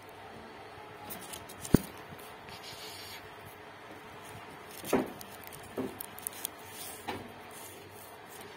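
Wire pet cage knocking and rattling as a kitten moves inside it: a sharp click about two seconds in, a louder knock at about five seconds, then a few lighter ticks.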